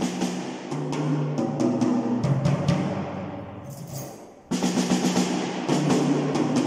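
PDP acoustic drum kit played with sticks: quick strokes around the toms with cymbal hits, the tom notes stepping down in pitch as a fill. There is a brief lull just before the middle, then the playing picks up again.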